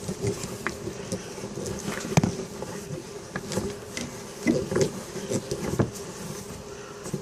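Hand-cranked drill being turned, its gears whirring, with irregular clicks and knocks as it is worked.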